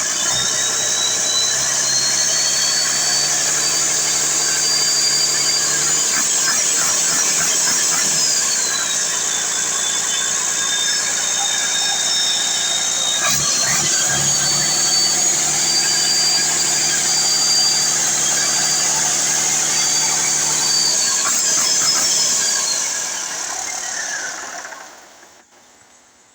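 Overhauled Cummins 6CTA six-cylinder diesel engine running, its speed raised and lowered with a high whine that rises and falls along with it. The engine dies away near the end.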